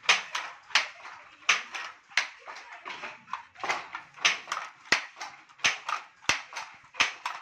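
Wooden handloom in operation: a regular clatter of sharp wooden clacks, about one and a half a second, as the batten beats in the weft and the shuttle is thrown across.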